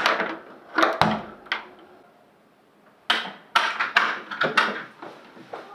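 Key working in a door lock and the door opening, with a dull thunk about a second in. A quick run of sharp taps follows later.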